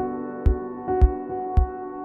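Background music: sustained chords over a steady beat, a low thud with a sharp click a little under twice a second.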